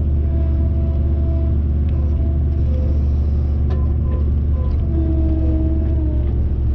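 Gehl skid steer engine running steadily under throttle, a strong low hum with shifting whine tones above it, and a few short knocks about halfway through.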